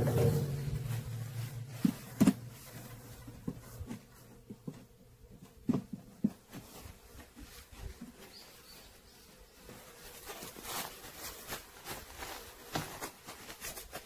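Honeycomb frames being handled at a stainless steel honey extractor, with sharp knocks against the drum, loudest about two seconds in and again near six seconds. Honeybees buzz around it, one close by near the start.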